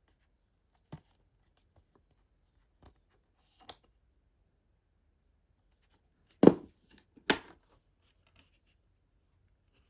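Plastic DVD case being handled: a few light clicks and taps, then two louder knocks close together about six and a half seconds in.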